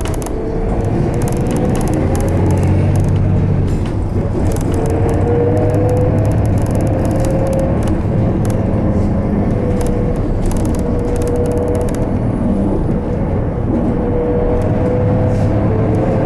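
Isuzu Erga Hybrid diesel-electric city bus running, heard inside the cabin: a steady low rumble with a whine that rises in pitch as the bus gathers speed, about four seconds in and again near the end.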